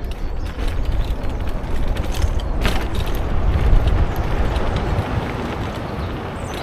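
Vehicle driving over a rough forest track: heavy low rumble and wind noise on the microphone, with scattered knocks and rattles, loudest a little past the middle.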